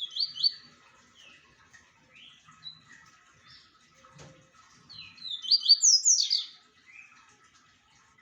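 Papa-capim seedeater (Sporophila) singing. A quick burst of slurred whistled notes comes at the start, softer scattered notes follow, and a louder, longer phrase of rapid sweeping whistles comes about five seconds in.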